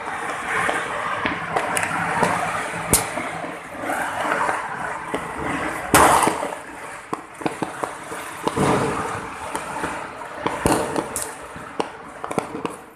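Snap pops (small paper-wrapped Diwali pop-its) thrown down and going off as a series of sharp cracks at irregular intervals, the loudest about six seconds in, over steady background noise.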